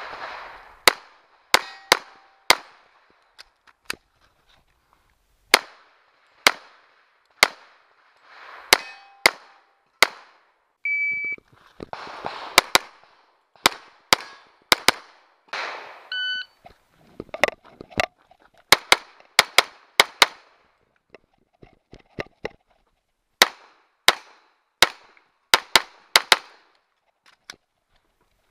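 Strings of .45 ACP pistol shots from a Glock 21, mostly fired in quick pairs with a few pauses between groups. After some shots a hit steel target rings with a short metallic tone.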